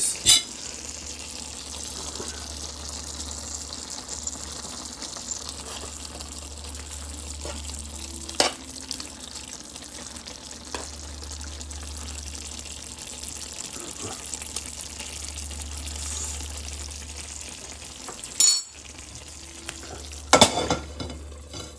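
A pan of chicken, potato and tomato stew bubbling and sizzling on the burner, a steady hiss with a low hum underneath. A few sharp knocks cut in, one about eight seconds in and several near the end.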